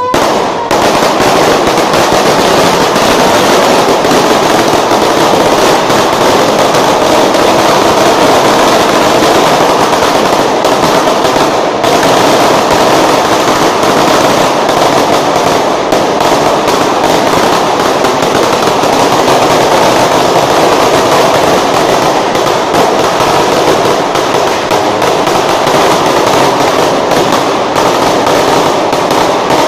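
A string of firecrackers going off on the street in one long, continuous rapid crackle of small bangs that does not let up.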